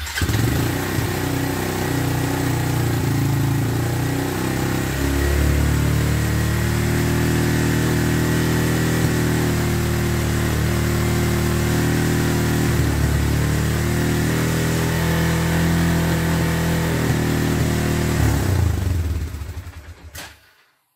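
2004 Suzuki Eiger 400 ATV's single-cylinder four-stroke engine running steadily at idle on a freshly rebuilt carburetor with a new diaphragm, idling a little bit high. It stops near the end.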